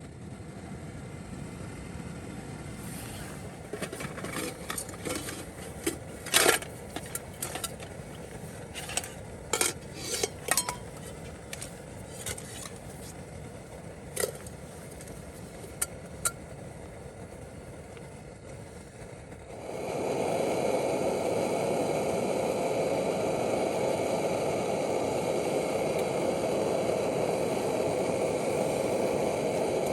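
Metal cookware and utensils clinking and clattering in irregular knocks over a steady background hiss. Just under two-thirds of the way through, a louder steady rushing noise starts abruptly.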